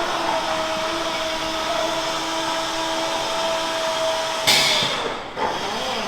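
Machinery running with a steady whine over a hiss; about four and a half seconds in, the whine stops and a short, loud burst of hiss cuts in.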